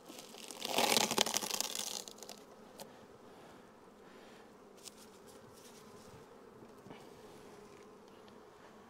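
Honeybees humming faintly and steadily around an open hive. About a second in there is a brief, louder rustle as a plastic-wrapped block of fondant is handled.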